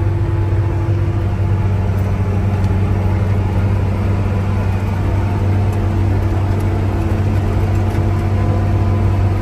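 John Deere 8760 articulated four-wheel-drive tractor's six-cylinder diesel engine running steadily, a constant droning hum heard from inside the cab.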